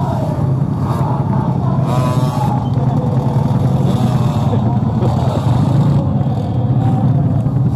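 Motorcycle engines running steadily in a dense crowd, under a low continuous rumble, with many voices calling and chattering over it.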